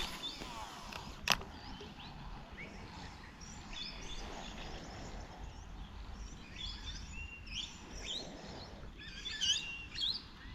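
Small birds chirping and calling over low outdoor background noise, the calls coming thicker near the end. A single sharp click sounds about a second in.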